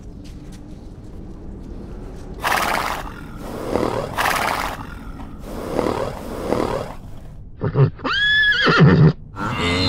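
Horses snorting in several short breathy puffs, then one horse whinnying near the end in a high call that rises and then falls.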